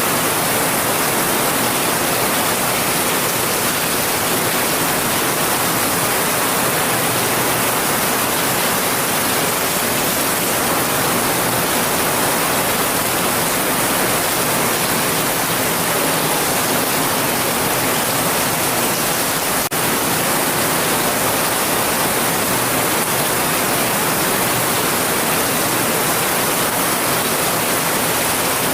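Heavy rain falling in a steady, even hiss with no separate drops or thunder standing out, broken by one momentary dip about two-thirds of the way through.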